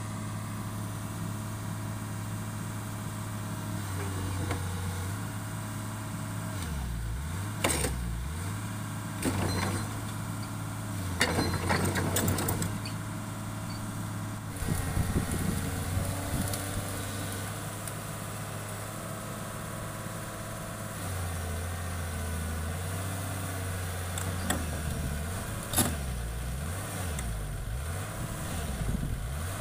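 Hitachi excavator's diesel engine running steadily, its pitch dipping and recovering several times, with a few sharp knocks.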